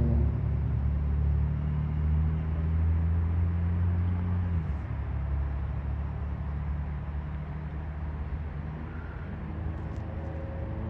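Low rumble of a vehicle running nearby: a steady low hum that cuts off about four and a half seconds in, then a rougher rumble.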